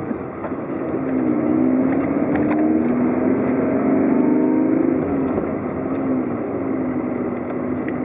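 Car engine and tyre noise from a car driving along a town street. The engine note swells about a second in, is loudest for a few seconds, then eases off after about five seconds.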